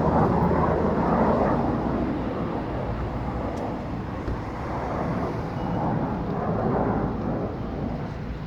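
Jet fighter's engine roar, a dense rushing noise that slowly fades as the aircraft moves away, swelling briefly about two-thirds of the way through.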